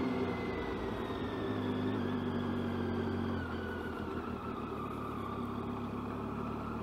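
Motorcycle engine running at low revs on the move, with a whine that slowly falls in pitch as the bike eases off.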